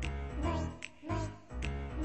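Background music with a steady beat: bass notes and sharp percussion strokes about every half second under a pitched melody.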